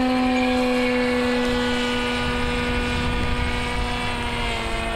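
Electric motor and propeller of a radio-controlled model plane in flight, a steady buzzing whine that is a lot of noise, easing slightly lower in pitch near the end as the power comes back. Low wind rumble on the microphone underneath.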